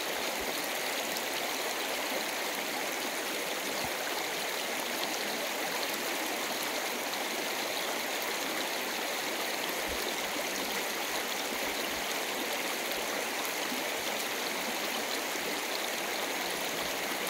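Shallow river water running steadily over stones and gravel, an even rushing babble that does not change.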